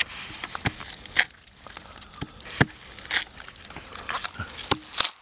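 Dry leaf litter and crumbling rotten wood crackling and snapping as they are handled, in irregular sharp clicks with brief rustles between them.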